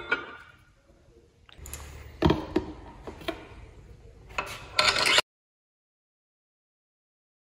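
Metal clinks and knocks of steel bolts being handled and dropped into the main bearing cap girdle on a Honda D16 aluminium engine block: a few scattered clicks, then a quick cluster of sharp ones about four and a half seconds in. The sound cuts off suddenly to dead silence for the last two seconds or so.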